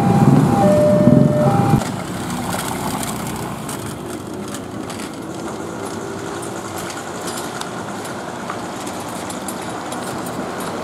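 A railway level-crossing warning alarm alternating between two tones, just under a second each, over a low rumble of idling motorcycles. It cuts off about two seconds in, giving way to a quieter steady rumble of a freight train with container flatcars pulling away in the distance.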